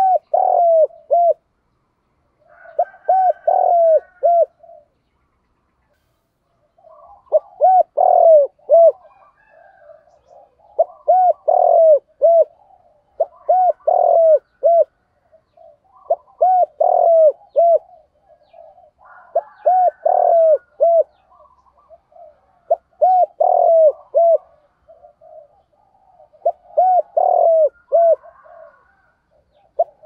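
Spotted dove cooing: repeated phrases of three or four low, rounded coos, a phrase every two to three seconds, with a longer pause about five seconds in.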